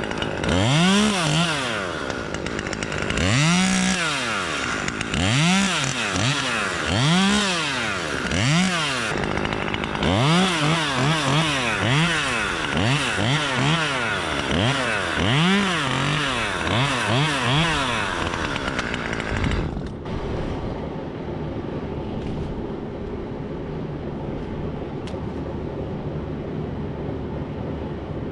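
Gas chainsaw revved up and down again and again, first in slow swells about every second and a half, then in quicker blips. It cuts off about twenty seconds in, leaving a steady low background noise.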